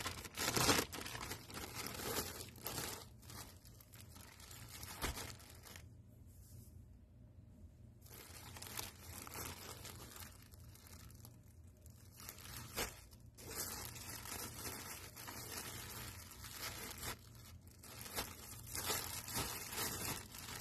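Thin plastic packaging crinkling and tearing as hands handle a poly mailer and pull at the clear plastic wrap around a pack of shower caps, in irregular spells with a couple of quieter pauses and busier crackling near the end.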